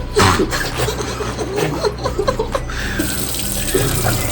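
Steady rushing of running water, like a tap, with short, broken vocal sounds during the first three seconds, fitting someone crying from the heat of a super-spicy chip.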